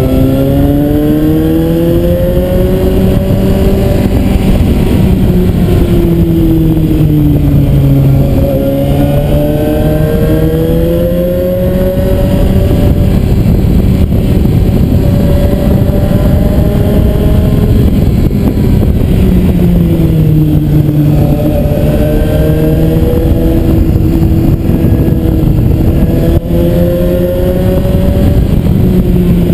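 Suzuki GSR 750's inline-four engine heard from the rider's seat, its pitch rising and falling as the throttle is opened and closed through a run of bends, dropping away several times when the rider eases off for curves. Under it runs a constant rush of wind and road noise.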